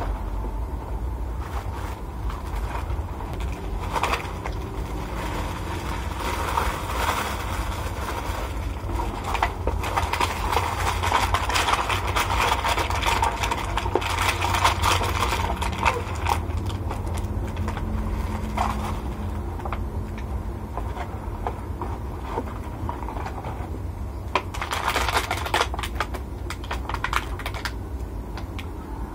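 Food packaging being handled: a cardboard rice box and a plastic bag of rice rustling and crinkling with many small clicks, busiest in the middle and again near the end. A steady low hum runs underneath.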